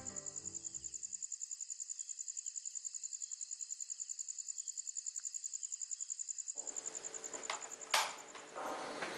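A cricket trilling at night: a steady high-pitched pulsing, about ten pulses a second. Near the end it stops and room noise takes over, with one sharp knock.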